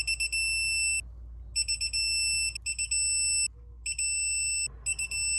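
Digital torque wrench beeping as the rotor bolts are tightened: each time a quick run of short high beeps, then a held beep as the set torque is reached, about five times over.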